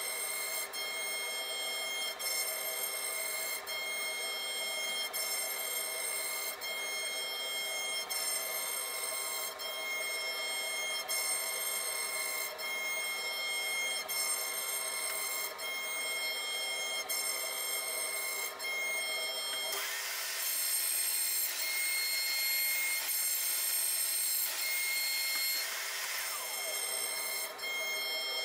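CNC router spindle whining steadily as a tapered carving bit cuts into a wooden board. The whine is a set of high steady tones with brief regular dips. From about two-thirds of the way through, a louder rasping cutting noise joins it for around six seconds, ending with a falling tone.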